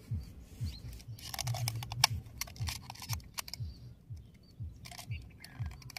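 Thin plastic bottle being cut with a blade: crinkling and sharp crackles of the plastic in irregular clusters as it is sliced through, loudest about two seconds in.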